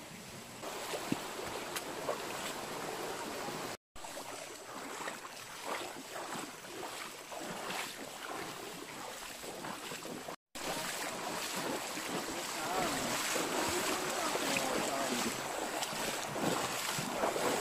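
Shallow rocky stream running over stones, with splashing of feet wading through the water. The sound drops out briefly twice.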